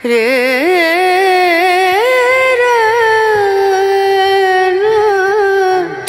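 Background music: one long melodic line with a wavering vibrato at first, then held notes sliding slowly up and down, breaking off near the end.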